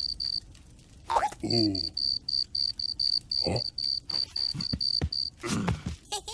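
Cartoon cricket chirping, a steady run of short high chirps at about four a second that stops a little after five seconds in. A brief low falling vocal grunt from the bear comes about a second and a half in, and a few short thumps follow later.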